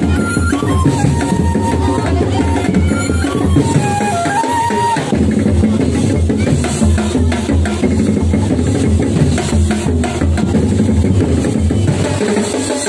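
Drum-led festival dance music, a dense, steady beat of drums and percussion. A high, wavering melody line runs over the drums for the first four seconds or so, then the drums carry on alone.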